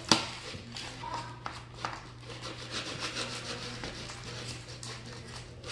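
A spoon stirring and scraping a thick glue-and-clay slime mixture around a bowl: an irregular run of rubbing scrapes, with a sharp knock just at the start.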